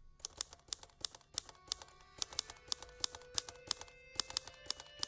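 Rapid typewriter key clatter, about five strikes a second, as the intro to a spoken radio column, with held musical notes coming in underneath about a second and a half in.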